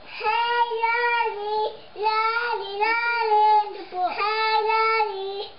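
A toddler singing in a high voice: three long phrases, each held near one pitch with small steps, a brief pause between them.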